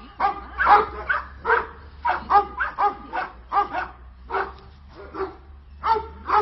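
Dog barking repeatedly, a quick run of short barks about two to three a second, with a brief pause near the end.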